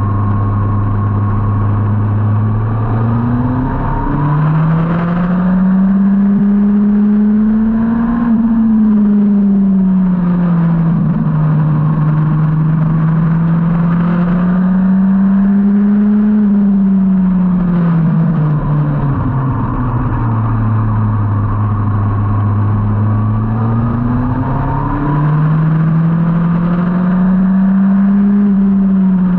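2003 Yamaha R1 inline-four engine heard on board at track speed, its revs climbing and dropping several times with steady low stretches near the start and past the middle, over constant wind and road noise.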